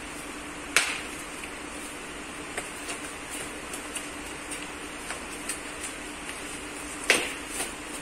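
Foam and plastic packaging being pulled off a new e-bike's frame: light crinkling and clicks, with two sharp knocks, one about a second in and one near the end, over a steady background hum.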